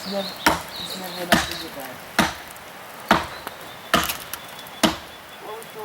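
Six sharp knocks in an even rhythm, a little under one a second, with faint voices in the background.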